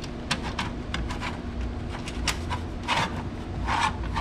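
Irregular small clicks and taps of metal hardware (washers, screws and nuts) being handled and fitted into an aftermarket rear diffuser, with two brief scraping rubs near the end.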